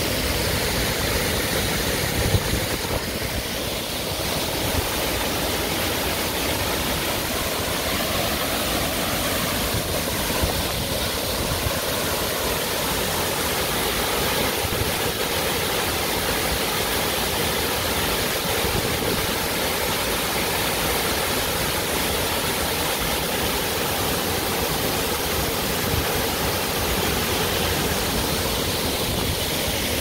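Waterfall: falling water making a steady, even rushing noise, with a brief thump about two seconds in.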